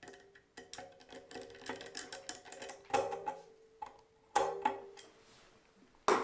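Hand screwdriver driving screws tight into the metal mounting piece on the underside of a ceiling fan: a run of small clicks and scrapes of the screwdriver tip, screw and metal, with louder clatters about three and four and a half seconds in and a sharp knock at the very end.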